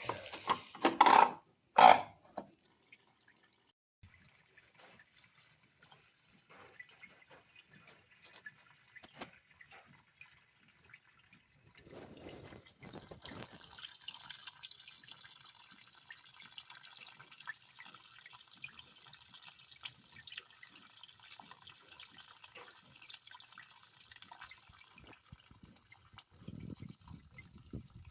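Gasoline trickling and dripping from the disconnected fuel line at the petcock of a 1997 Suzuki Quad Runner 250 as the tank drains. A faint, steady trickle that is louder through the middle, after a few sharp knocks right at the start.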